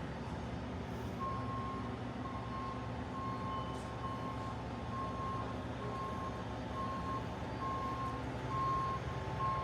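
A vehicle's reversing alarm beeping in an even on-off rhythm, starting about a second in, over the steady low rumble of a running engine.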